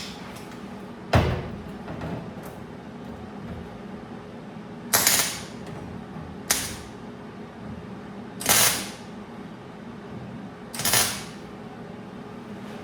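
A welder laying short tack welds on sheet-metal patch panel: four brief bursts a couple of seconds apart, with a sharp click about a second in.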